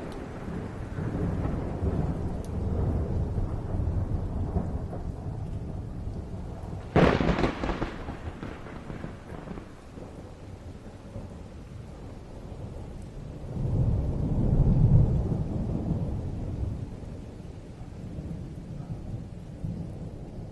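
Thunder rolling: a low rumble, a sharp close crack about seven seconds in that trails off into rumbling, then another deep rumble swelling and fading around the middle of the second half.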